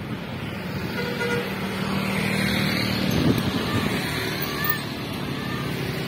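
Road traffic: passing vehicle engines, with a steady low tone held for about two and a half seconds in the first half.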